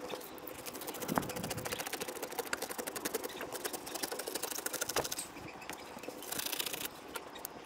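Rapid, even mechanical clicking, many a second, for about five seconds, followed near the end by a brief hiss.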